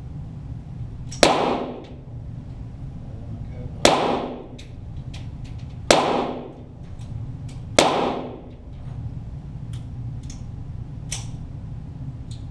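.22 rimfire target pistol shots (Walther GSP), four of them about two seconds apart, each with a short echo. Fainter sharp ticks follow near the end, over a steady low hum.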